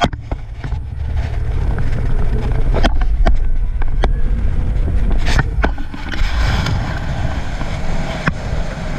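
Open-top double-decker tour bus driving along a highway: a steady, loud low rumble of wind buffeting the microphone on the open upper deck, mixed with the bus's running noise. A few sharp knocks or rattles come through midway and near the end.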